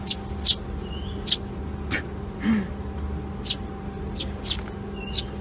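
Sparrow chirping: about eight short, high chirps at irregular intervals, over a steady low background hum.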